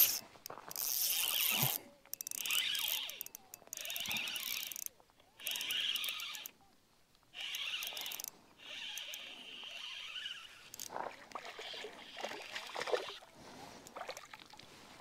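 Shimano Vanford 2500 spinning reel cranked in short bursts of about a second each, a stop-and-go retrieve, after a sharp click at the start. Near the end a hooked largemouth bass splashes at the surface.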